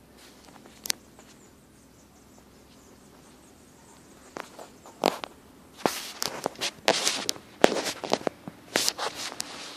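Handling noise close to the microphone: a couple of single clicks, then from about halfway a dense run of rustles and sharp knocks as the phone camera is jostled against the bedding.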